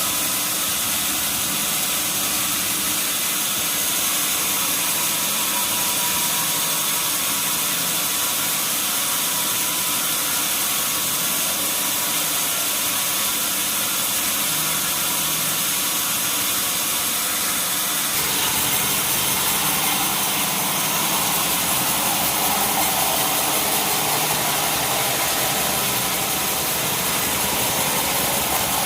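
Band sawmill machinery running steadily with an engine-like hum and hiss. The sound changes abruptly about 18 seconds in.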